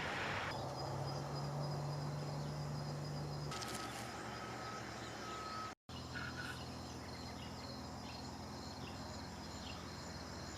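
Insects trilling steadily in high summer vegetation over a low engine hum. The sound drops out for a moment about six seconds in.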